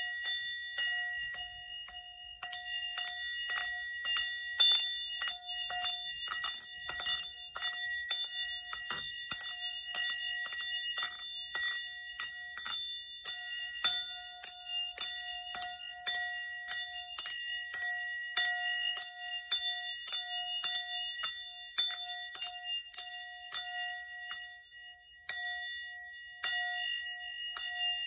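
Sound bowl played with small bells instead of a wooden striker: quick, repeated bell strikes, about two a second, ringing over a steady lower hum from the bowl.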